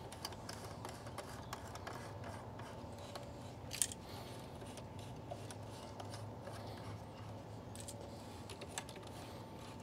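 Faint, scattered clicks and ticks from the band-clamp screw of a Pentair/Sta-Rite Dura-Glas pool pump being tightened to draw the pump's two halves together, with a sharper click about four seconds in and another near the end.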